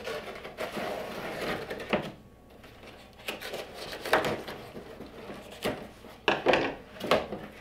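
Cardboard shipping box being pulled open by hand: the cardboard and packing tape rustling and scraping, with several short sharp rips as the flaps come apart.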